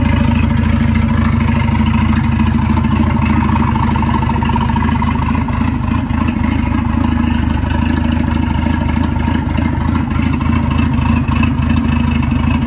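Ford 1.9 CVH turbo four-cylinder engine running at a steady idle, freshly restarted after a head gasket replacement and not yet tuned.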